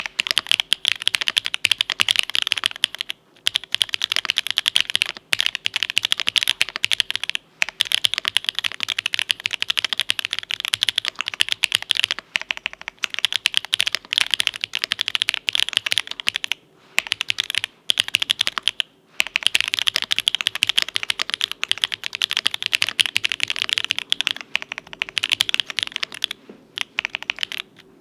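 Continuous fast typing on a Cyberboard R3 mechanical keyboard with lubed Owlab Tungsten linear switches, an aluminium plate and GMK keycaps: a dense run of keystroke clicks with short breaks every few seconds.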